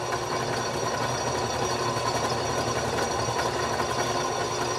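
Benchtop drill press running steadily, its bit drilling down into a broken steel bolt stuck in an exhaust manifold. A continuous motor hum with a few held tones over an even grinding noise.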